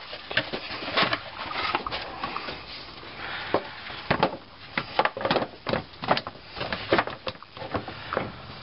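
A plastic radiator fan shroud being handled and pushed back into place in a pickup's engine bay: irregular knocks, clicks and scrapes of hard plastic, several of them sharp.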